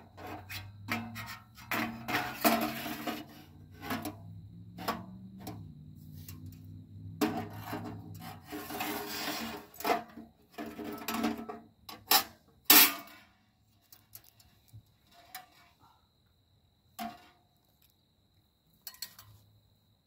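Stainless-steel sheet-metal parts of a folding camp wood stove being slid and fitted together by hand: scraping and rattling metal, with two sharp clanks about twelve seconds in. After that there are only a few light clicks.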